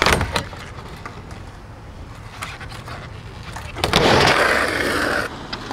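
Skateboard on a wooden ramp: a few sharp clacks of the board at the start, then the wheels rolling quietly, and a loud rush of the wheels across the ramp from about four seconds in, lasting about a second and a half.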